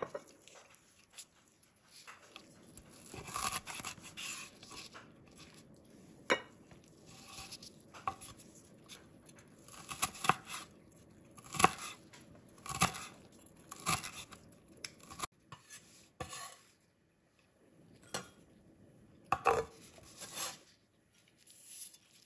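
Chef's knife chopping fresh dill on a bamboo cutting board: irregular knocks of the blade on the wood, about one a second, with short pauses between runs.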